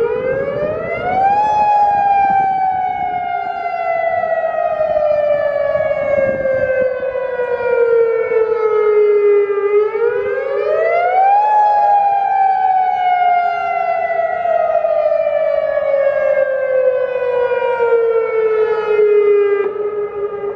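Federal Signal DSA electronic outdoor warning siren sounding its test alert: a loud tone that climbs quickly for about a second and a half, then falls slowly over about eight seconds, twice, fading a little near the end.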